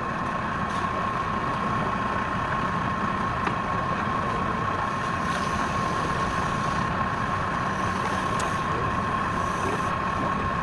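Woodturning lathe motor running at a constant speed: a steady high whine over an even hiss, with a few faint ticks.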